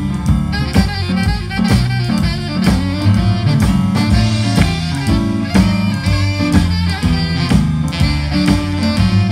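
Live blues band playing an instrumental passage: two saxophones over drum kit and rhythm section, with a steady beat.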